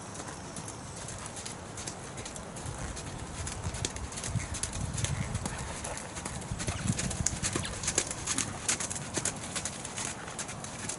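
Horse's hooves beating on sand arena footing at a trot, a steady rhythm of soft thuds that grows louder in the middle as the horse passes close by.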